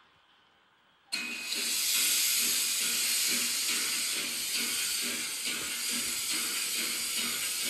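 Recorded steam hiss from the sound system of an H0 model steam locomotive, coming on suddenly about a second in and holding steady. A low pulsing runs under it about two to three times a second.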